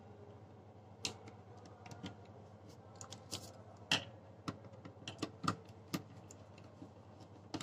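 Faint, irregular light clicks and taps from a blue wire being handled and fed into the terminals of a plastic contactor.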